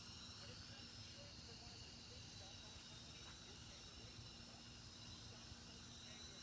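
Faint evening outdoor ambience: a steady high chirring of insects over a low hiss.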